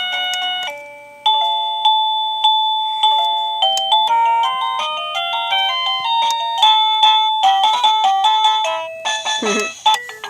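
Wireless doorbell receiver playing electronic chime melodies, one simple note at a time. One tune cuts off and another starts about a second in as the tunes are stepped through.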